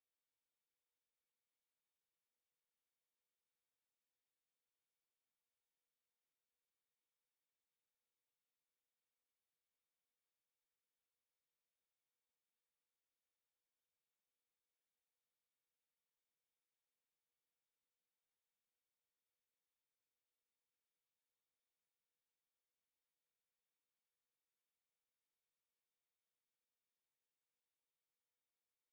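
A steady 7777 Hz sine-wave test tone: one loud, high-pitched note held unchanged throughout.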